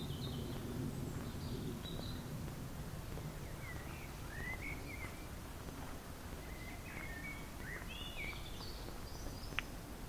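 A songbird singing a run of short, varied whistled phrases, several in quick succession in the second half, over a steady low rumble. A single sharp click comes near the end.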